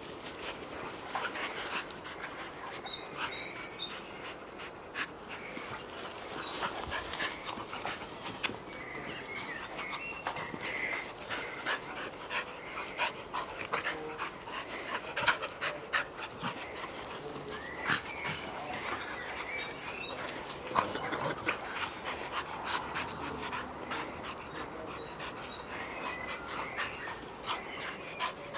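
Two Schapendoes dogs play-wrestling on grass, panting, with many short scuffling knocks and brief vocal sounds as they tussle.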